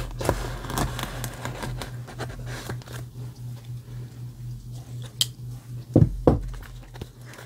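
Packing tape on a cardboard box being slit and peeled with a Leatherman multitool's knife blade, with scratching and tearing over the first few seconds. Then a sharp click and, about six seconds in, two dull knocks, over a low steady hum.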